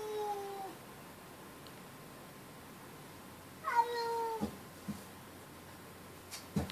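Domestic cat giving long, drawn-out meows at another cat: one call trailing off about half a second in, another at about four seconds. A faint knock comes near the end.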